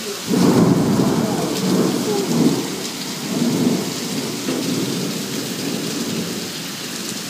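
Thunder rumbling over heavy rain: a loud rumble starts suddenly just after the start, swells a few times over the next four seconds, then dies away, over the steady hiss of a downpour.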